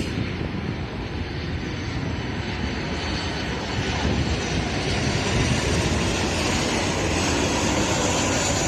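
Jet airliner's engines passing, a steady roar that grows gradually louder, with a thin high whine coming in near the end.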